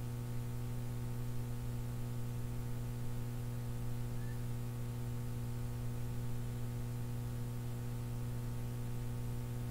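Steady low electrical hum with fainter higher tones stacked above it.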